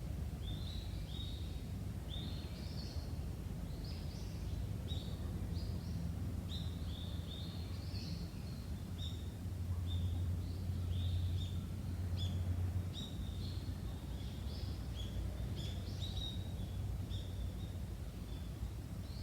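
Small birds calling with many short, quick chirps repeated throughout, over a steady low rumble that swells for a few seconds about ten seconds in.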